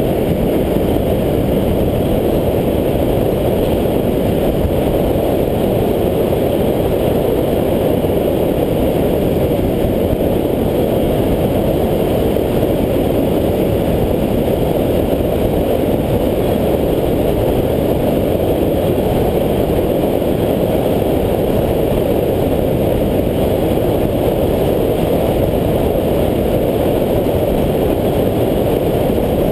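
Steady, loud rush of wind on the microphone mixed with the roll of longboard wheels on asphalt during a fast downhill run, unbroken throughout.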